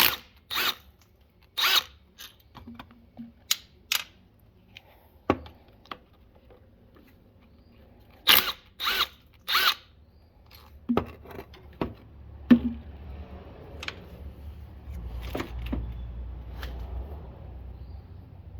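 Hand tools clinking and knocking against metal engine parts: a string of separate, irregular sharp clinks, a few of them ringing briefly, with a low rumble coming in over the last few seconds.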